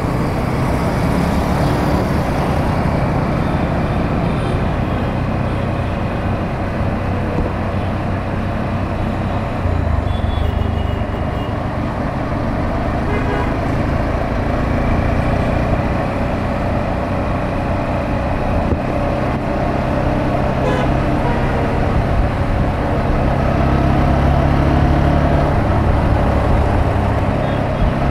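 A motorcycle engine running under way through busy city traffic, with steady road and wind noise and the hum of other vehicles; a horn toots now and then. The engine grows louder for a few seconds near the end.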